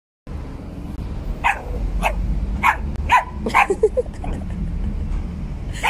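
A small dachshund barking sharply in a quick run of about five barks, roughly two a second, with a few short yelps after them and one more bark near the end.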